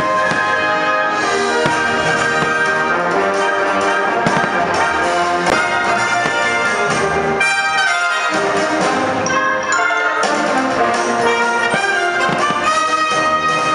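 Orchestral music with prominent brass: the soundtrack of a fireworks show.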